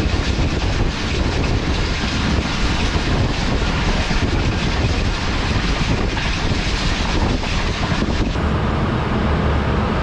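Passenger train running at speed: a steady rumble and hiss of coach wheels on the rails, with faint rhythmic clicks from the track.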